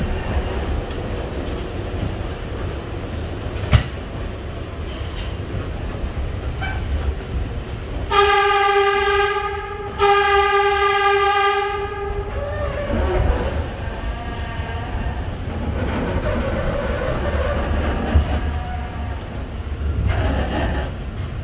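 New York City subway train running on its rails with a low rumble and the odd wheel click. About eight seconds in, the train's horn sounds two long steady blasts of about two seconds each, one straight after the other.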